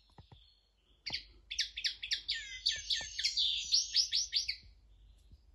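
Common linnet singing: after a few faint clicks, a fast run of quick, high notes starts about a second in and stops shortly before the end. It is a tutor male's song, used to teach young birds.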